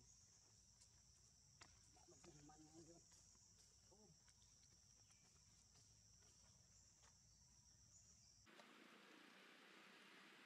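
Very faint outdoor background with a steady high-pitched insect drone and a few faint wavering calls or voices about two seconds in; the drone cuts off suddenly near the end, leaving a faint hiss.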